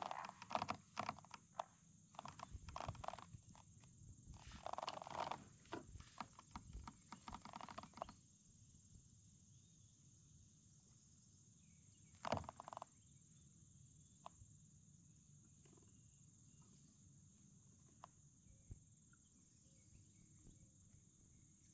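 Animal calls in quick, repeated bursts for about the first eight seconds, then near silence with one brief sound about twelve seconds in.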